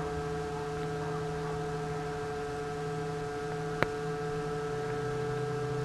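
Steady electrical hum made of several steady tones, the lowest dropping a little in pitch near the end. A single sharp click about four seconds in, from the 3D-printed plastic reel parts being fitted together.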